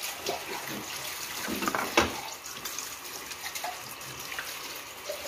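Plantain slices frying in hot oil in a pan, a steady crackling sizzle, with one sharp knock about two seconds in.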